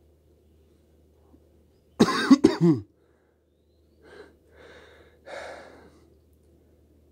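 A person coughing hard about two seconds in, two coughs in quick succession, followed by a few fainter breathy sounds.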